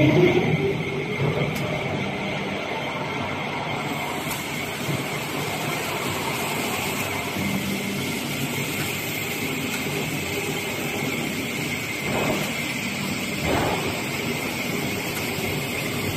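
M7150-1250 surface grinder running, its grinding wheel working metal with a steady hiss over a mechanical rumble. The noise jumps up suddenly at the start, and there are two brief surges near the end.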